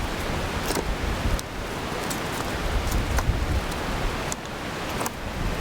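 Wind buffeting the microphone outdoors: a steady rushing hiss with uneven low rumbles and a few faint ticks.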